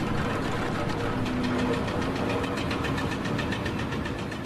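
A heavy vehicle or machine engine running with a fast, even pulse, fading out near the end.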